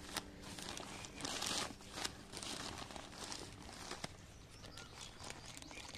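Hands digging in loose compost and soil to lift out an elephant foot yam tuber: irregular rustling, crackling and crunching with scattered small clicks.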